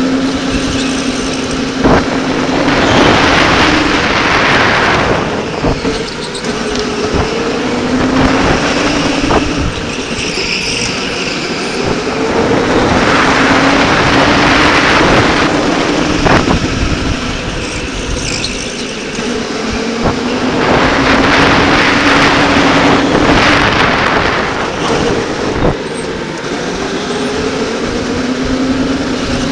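An electric go-kart driven hard round an indoor track. Its motor whine climbs and falls in pitch as the kart speeds up and slows for the corners. A rushing noise swells three times, and there are a few sharp knocks.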